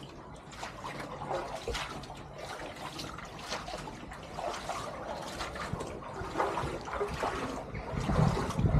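Shallow brook water trickling and splashing as someone moves through it, an uneven run of small splashes that grows louder near the end.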